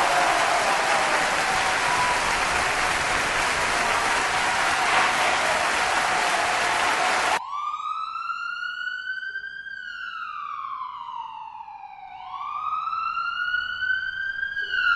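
A steady rushing noise cuts off suddenly about halfway through. A police-siren wail follows, a clean tone that rises, falls slowly, then rises again.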